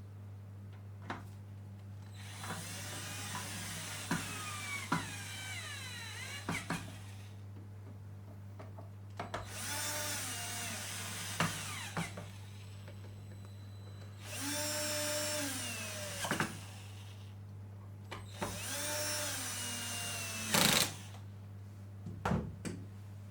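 Cordless electric screwdriver run in four short bursts of a few seconds, its motor whine rising and falling in pitch each time, with small clicks between the runs.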